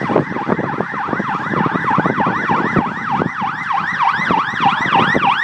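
Emergency vehicle siren in fast yelp mode, its tone rising and falling about three to four times a second, cutting off near the end. Short irregular pops sound underneath.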